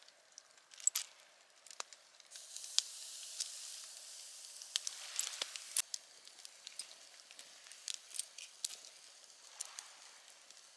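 Campfire crackling with scattered sharp pops, and a sizzling hiss for a few seconds from about two seconds in, from a steak grilling over the open fire.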